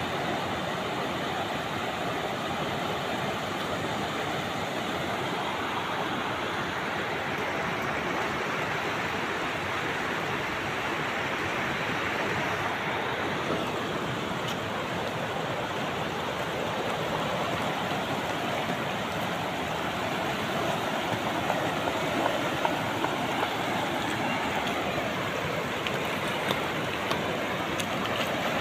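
Steady rush of a swollen, fast-flowing muddy river, with water pouring over a low concrete weir. A few light taps or splashes come near the end.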